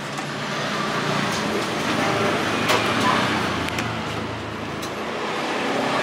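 Motor vehicle engine and traffic noise, swelling toward the middle and easing off, with a sharp click about two and a half seconds in.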